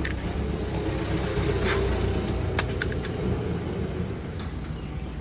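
Street traffic rumbling, with a vehicle passing and swelling about two seconds in, and a few sharp clicks over it.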